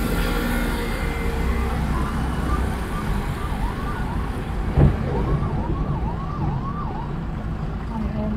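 A siren wailing in quick rising-and-falling cycles, about two a second, over the low rumble of the car's engine and traffic heard from inside the car. There is a single thump a little before the middle.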